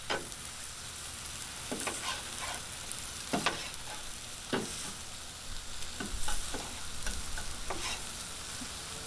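Steak and vegetables sizzling on a Blackstone 22-inch flat-top griddle, a steady frying hiss. Short clicks and scrapes of a knife and fork against the griddle's steel top come at irregular intervals as the steak is sliced.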